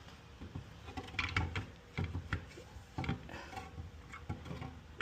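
Scattered light knocks and clicks of washer parts being handled and fitted during reassembly, with no steady rhythm.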